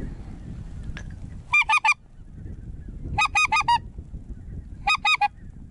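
Goose honking in three quick bursts about a second and a half apart, each a run of three or four short, loud, alike honks.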